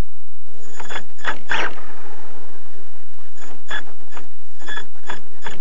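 RC short-course truck's drivetrain and motor heard from a camera mounted on the truck: short bursts of mechanical gear whine and rattle, a cluster about a second in and a quick run of several from about three and a half seconds.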